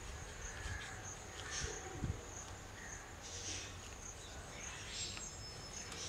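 Faint rustling and a couple of soft knocks from a corrugated plastic hose being handled, over a steady faint high-pitched pulsing chirp.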